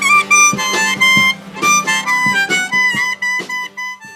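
Instrumental ending of an old-time country song: a held, wavering melody over regular strummed chords, dying away near the end.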